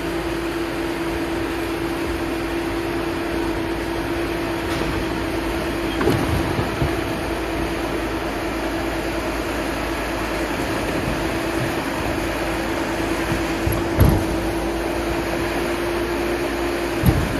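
An engine idling steadily with a constant hum. A few knocks stand out over it, about six seconds in, around fourteen seconds, and near the end.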